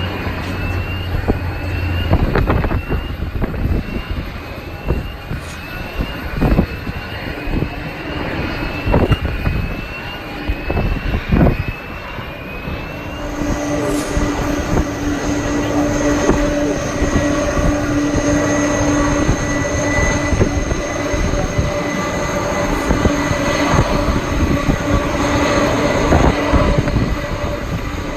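Jet airliner engines running, with a steady whine that sets in about halfway through. Gusts of wind buffet the microphone.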